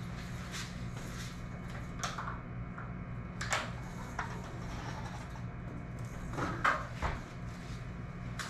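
A fishing rod being slid into PVC pipe coupler holders screwed to a garage door, with scraping and a few knocks against the door panel, the loudest near the end. A steady low hum sounds underneath.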